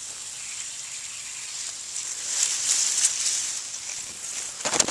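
Steady hiss of water escaping under pressure from a leak in the supply pipe to a backflow preventer, where the pipe has been damaged and wrapped with tape. Grass rustles against the microphone near the end.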